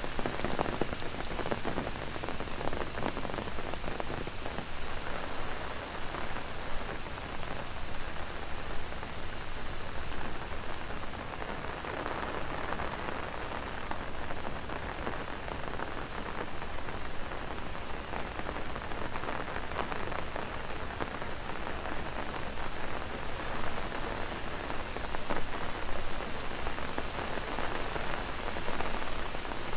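Heavy rain falling in a dense patter of drops, with a steady high-pitched chorus of cicadas droning over it without a break.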